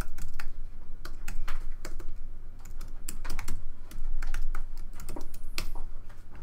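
Typing on a computer keyboard: an irregular run of key clicks, several a second with short pauses, as a web address is typed.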